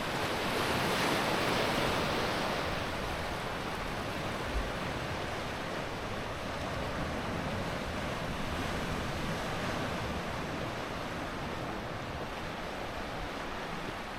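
Atlantic surf breaking and washing around the pier at the river mouth, swelling louder about a second in and then settling to a steady wash. Low wind rumble on the microphone underneath.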